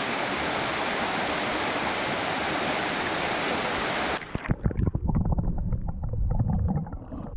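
Rushing river rapids, a steady even hiss of fast water over rocks. About four seconds in it switches abruptly to the muffled, uneven low burble of the current heard underwater.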